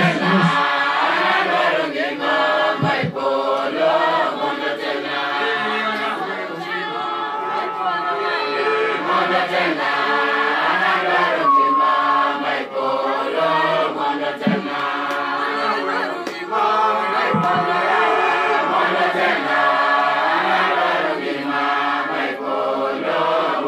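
Church congregation singing a hymn together, many voices at once with no pause.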